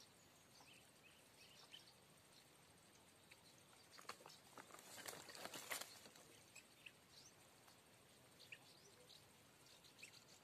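Near silence with faint, scattered bird chirps, and a brief patch of soft crackling clicks about four to six seconds in.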